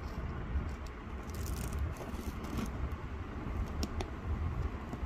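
A low steady rumble of background noise, with a few faint ticks and scratches from a toothpick working the peel-off layer of a sand-art sheet.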